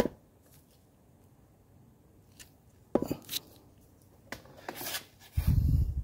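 Gloved hand handling and pressing the piping strip and wind lace into the door-frame trim: a few short scrapes and rustles after a quiet start, then a dull low thump near the end.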